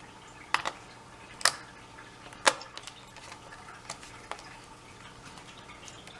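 Scattered sharp clicks and taps, the loudest about two and a half seconds in, from a small screwdriver backing out a keyboard retaining screw on the underside of a Lenovo B570 laptop.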